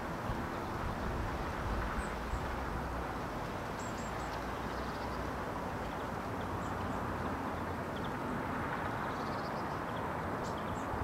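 Outdoor background: a steady low rush with short, faint, high bird chirps scattered through it every second or so.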